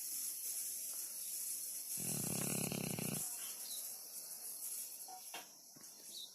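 Dog snoring: one drawn-out snore about two seconds in, lasting a little over a second, then quieter breathing.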